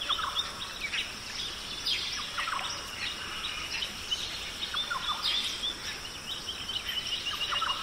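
Many small birds chirping and twittering in quick short calls and falling notes, over a steady high hiss.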